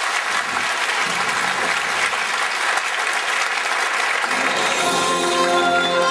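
Audience applauding with a dense patter of clapping. About four seconds in, music with long held notes comes in and grows over the clapping.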